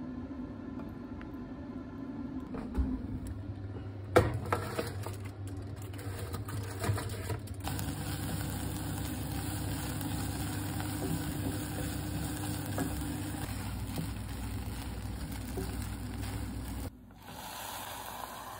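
Chopped onion and parsley sautéing in a saucepan, giving a steady sizzle over a low hum. A sharp knock comes about four seconds in, and the sound drops to a quieter stretch near the end.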